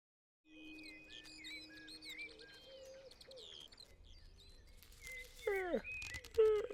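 Small birds chirping and twittering in quick, high calls, with a few held notes underneath. Near the end comes a sliding sound that falls in pitch, then a brief louder sound.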